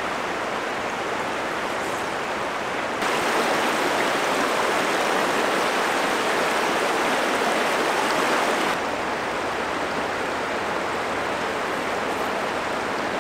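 Steady flow of a shallow river running over a rippled, rocky bed. It steps up louder about three seconds in and drops back about six seconds later.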